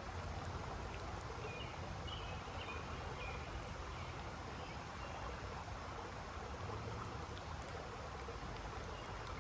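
Steady rush of flowing creek water, with a few faint bird chirps in the first few seconds.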